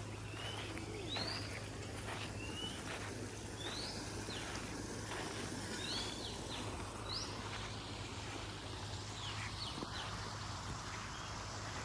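Birds calling outdoors: short rising whistled notes, roughly one a second, over a steady background hiss and a constant low hum.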